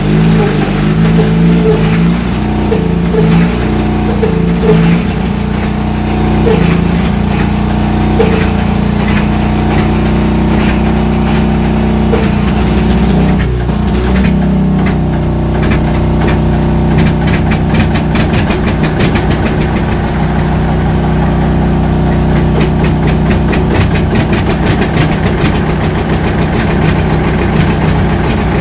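Engine of a 1951 John Deere R tractor running while it is being started up. About halfway through the sound changes, and from then on an even, rapid knocking of firing strokes carries on.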